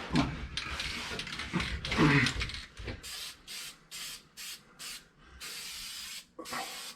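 Paint being sprayed onto a roll cage: a run of short hissing spritzes, about six in quick succession, then one longer spray of under a second near the end.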